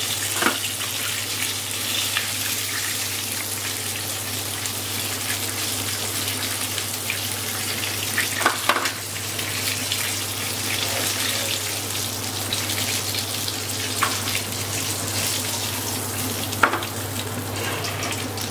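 Batter-coated chicken pieces deep-frying in hot oil in a wok, a steady sizzle over a low hum, with a few sharp clicks of metal tongs lifting pieces out.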